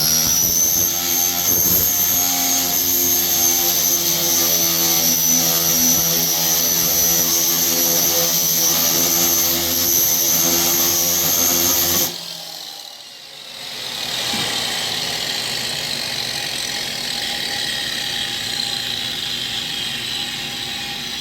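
Power tool spinning a friction shrinking disc against a car's sheet-metal quarter panel to heat and shrink a high spot. The pitch rises quickly to a steady high whine that runs for about twelve seconds and then cuts off suddenly. A quieter steady mechanical sound with slowly falling pitch follows a couple of seconds later.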